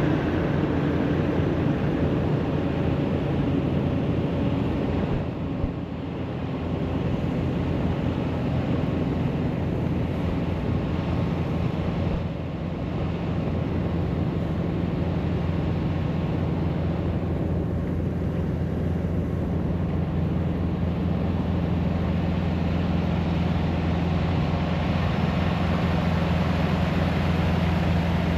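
Steady vehicle noise: a low engine hum over a constant rush of road or wind noise, dipping briefly about five seconds in and again about twelve seconds in.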